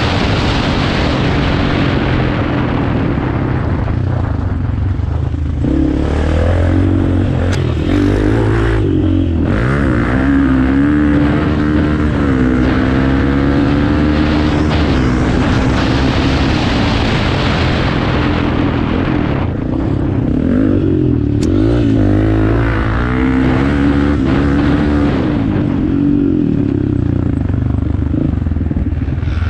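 Off-road motorcycle engine running loud, its revs rising and falling again and again as the bike is ridden.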